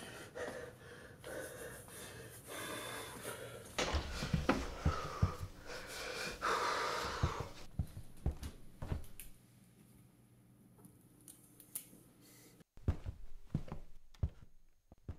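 Heavy, wheezing breathing of someone out of breath, followed near the end by a few light knocks and clicks.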